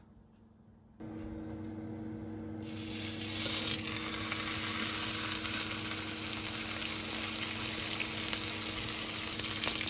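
Marbled wagyu steak sizzling in a nonstick frying pan. The sizzle starts a few seconds in, grows louder and then holds steady over a low, even hum.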